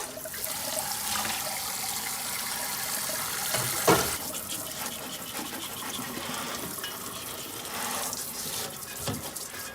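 Kitchen tap water running steadily into a sink as a blanched beef tongue is rinsed clean, with a sharp knock about four seconds in and a softer one near the end.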